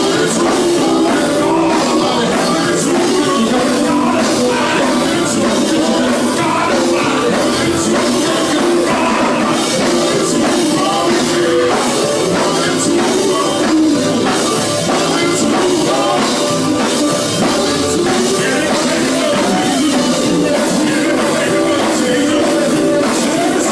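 Live gospel band playing loudly and steadily, with a driving drum beat.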